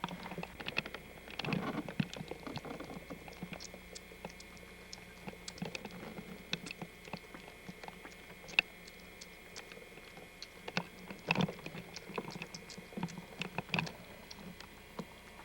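Kittens moving about in a small cage: scattered light taps and scratches of small paws, with busier flurries about a second and a half in and again around eleven seconds in. A faint steady hum lies underneath.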